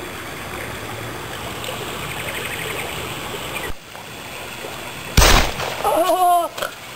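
A single gunshot about five seconds in, sudden and loud with a short ringing tail, over a steady background hiss; a person's short cry follows right after.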